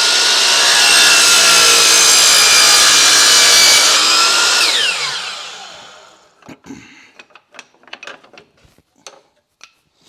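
Table saw running and cutting wood, then switched off about four to five seconds in, the blade winding down with a falling pitch and fading out. A few light clicks and knocks follow.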